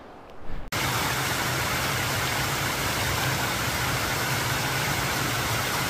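Steady rushing of water from a small waterfall, starting abruptly about a second in.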